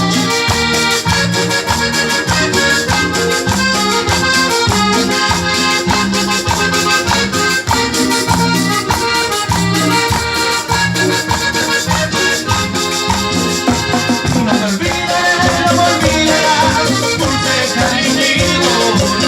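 A cumbia band playing an instrumental passage: a steady bass beat under a held-note melody, with shaken percussion running through it.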